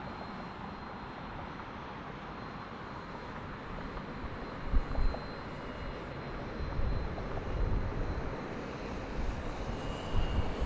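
Distant steady noise of an Airbus A350-900 jet airliner on final approach. From about halfway through, wind gusts buffet the microphone.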